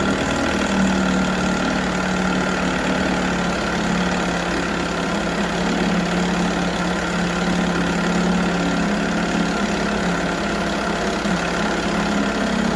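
1978 Johnson 6 hp two-cylinder two-stroke outboard idling steadily in a test tank while it warms up.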